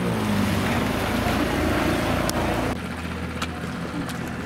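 Low, steady hum of a boat engine under wind and water noise, with a few faint clicks. The sound changes abruptly a little past halfway, dropping slightly in level.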